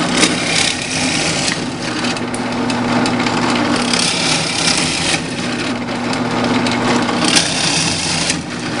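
Drill press motor running steadily while a 7/8-inch spade bit bores holes through half-inch pine, the cutting noise swelling each time the bit is fed into the wood.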